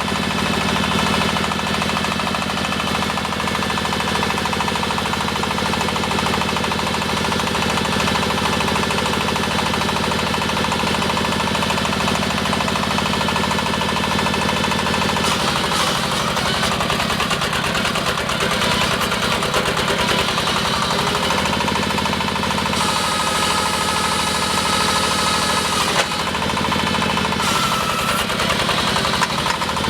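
Diesel engine of a hydraulic water-well drilling rig running with a hard, even knock. Its sound changes about halfway through, and a high steady whine comes in for a few seconds near the end.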